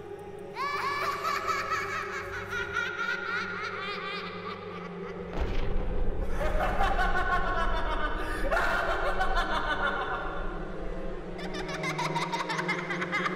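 A high, cackling laugh with rapid pulses, rising in pitch, heard several times over a low droning score; a deep rumble comes in about five seconds in.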